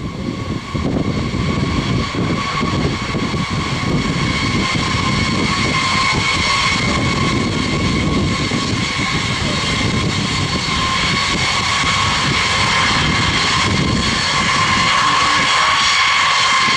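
Boeing B-52H Stratofortress's eight TF33 turbofan engines running as the bomber rolls along the runway: a steady jet whine over a deep rumble, growing a little louder near the end.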